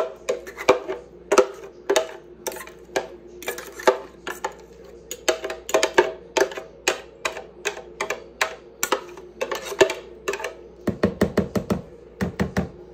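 Metal fork scraping and knocking against a plastic blender jar as thick puppy mush is scraped out, a string of sharp clicks two or three a second. Near the end comes a quicker run of taps.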